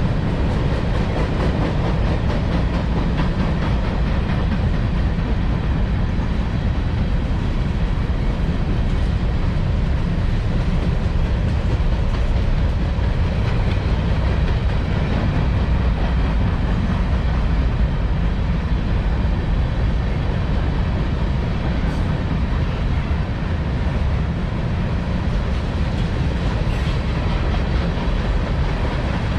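Freight train cars rolling past on the rails: a steady low rumble with continuous clicking of the wheels over the rail joints.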